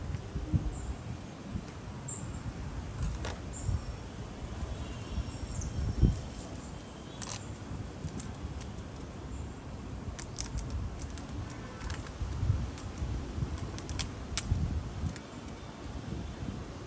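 Plastic cover wrap being torn and peeled off a small cardboard product box, with scattered crinkling crackles and low handling bumps, the loudest bump about six seconds in.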